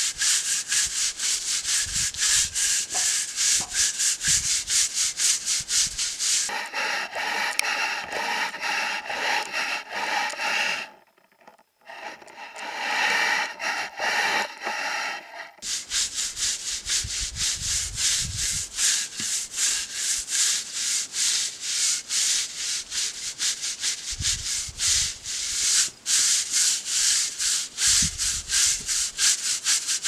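Stiff bristle push broom scrubbing the bark of an ash log in rapid, even back-and-forth strokes, a dry scratching rasp. The scrubbing pauses briefly about eleven seconds in, then carries on.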